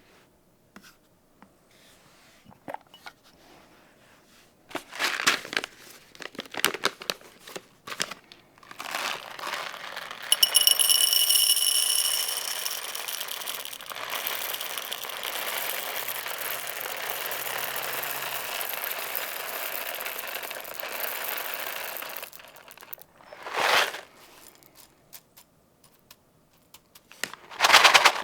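Packaging being handled: scattered crinkles and clicks, then a long steady rasping stretch of about twelve seconds, then two short rustles near the end.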